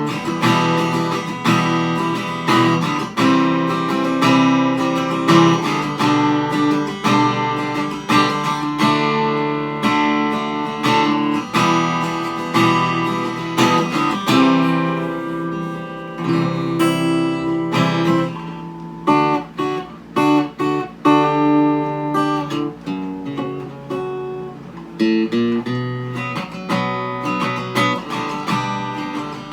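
D&D Django Jr. mahogany acoustic-electric guitar strummed in chords, one strum after another with chord changes, heard through its pickup and a small 10-watt practice amplifier.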